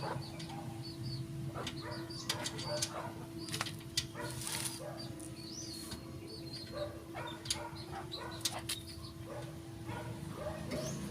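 Small birds chirping again and again over a steady low hum, with a few sharp clicks or knocks scattered through.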